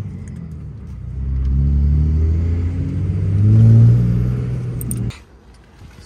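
Cummins diesel pickup engine pulling away and accelerating, its note climbing in pitch and growing louder, then cutting off suddenly about five seconds in.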